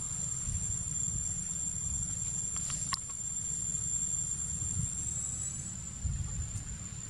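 Insects droning as a steady high-pitched whine, over a constant low rumble. A single sharp click about three seconds in.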